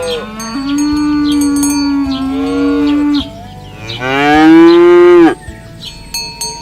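Cattle mooing: one long, low moo that runs for about three seconds, then after a short pause a louder moo that swells and drops away at its end.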